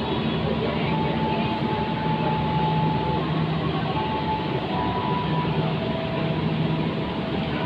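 The KA Jayakarta Premium, a long diesel-hauled passenger train, starting to pull out of the station: a steady rumble and hum of the train moving slowly, with thin high tones coming and going over it.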